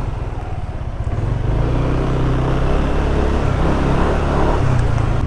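Yamaha NMAX 155 scooter's single-cylinder engine running under way, picking up speed over the first couple of seconds and then holding steady, with wind rushing over the microphone.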